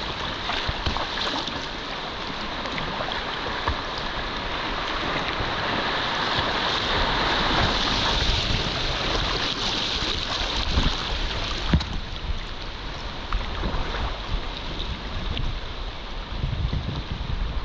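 Fast, high river water rushing around a whitewater kayak, with splashes and an occasional knock from paddle strokes. Wind buffets the microphone, with a low rumble near the end.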